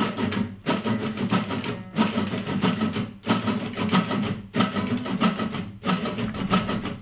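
Several nylon-string classical guitars strummed together in a steady strumming pattern that repeats about every second and a quarter, with a short break between repeats. The fretting hands rest on the strings without pressing them, so the strums come out as damped, percussive scratches rather than ringing chords.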